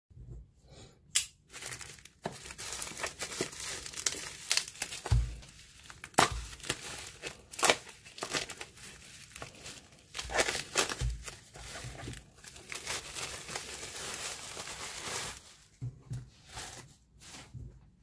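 Plastic bubble-wrap packaging crinkling and tearing as it is slit with a folding knife and pulled open by hand, with frequent sharp crackles. It dies down near the end.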